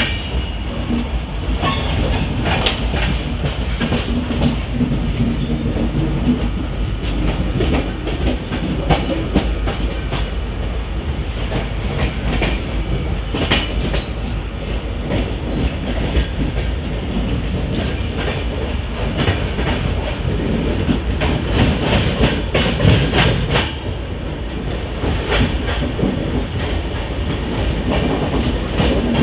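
Express passenger train running, heard from an open coach doorway: a steady rumble with the wheels clicking irregularly over rail joints.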